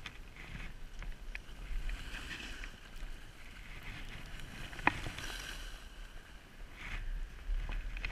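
Skis or board sliding over snow on a downhill run: a hiss that swells and fades with each turn, over a low wind rumble on the microphone. One sharp click about five seconds in.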